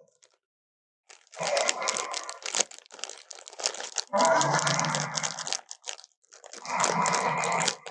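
Movie Spinosaurus roar sound effects: after a short silence, three harsh, noisy roars, each lasting a second or two. The middle roar is the loudest and deepest.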